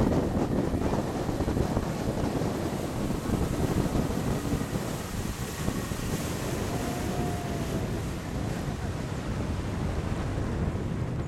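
Open speedboat under way on a river: heavy wind buffeting the microphone over the steady rush of water and the boat's motor.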